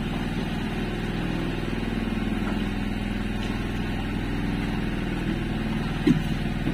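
A small engine running steadily at a constant speed, a low even drone; a short sharp sound breaks in about six seconds in.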